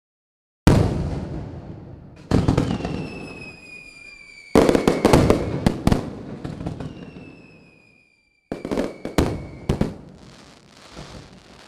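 Fireworks going off: several sharp bangs, each fading slowly, with a spell of rapid crackling in the middle and long high whistles that slowly fall in pitch.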